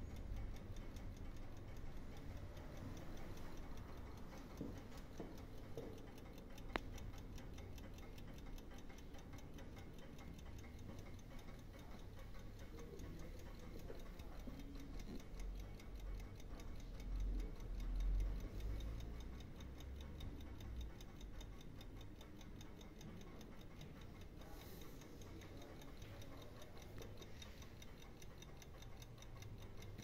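Antique French carriage clock ticking quickly and evenly from its platform escapement. A single sharp click comes about a quarter of the way in, and a low rumble a little past halfway.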